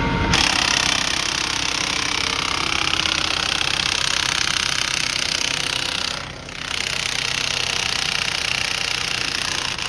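A handheld power tool ('gun') running flat out in one long burst with a fast rattling drive. It eases off briefly about six seconds in, then picks up again.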